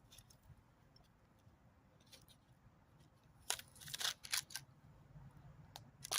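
Quiet, then a cluster of short sharp clicks and taps about three and a half seconds in, with two more near the end.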